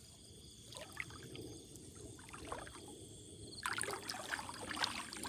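Shallow water sloshing and trickling as someone wades and moves hands through it, with a few small splashes that grow busier in the last second or so.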